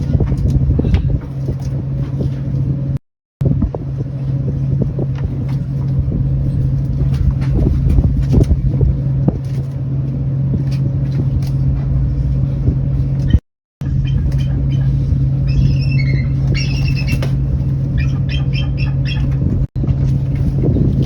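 Steady low engine drone throughout, cut off abruptly twice for a moment. For a few seconds about two-thirds through, birds call over it in high, repeated squawks.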